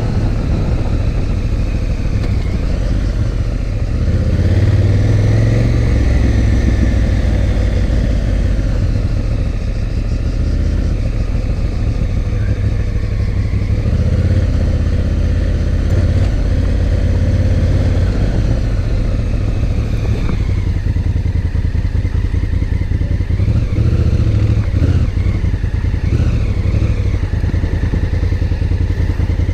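Adventure motorcycle engine running at low speed on a sandy dirt track, its note swelling and easing with the throttle, with clatter from the rough surface.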